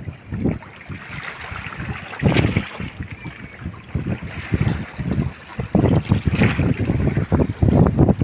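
Wind buffeting the microphone in irregular gusts that grow heavier about halfway through, over the hiss of shallow seawater lapping around rocks.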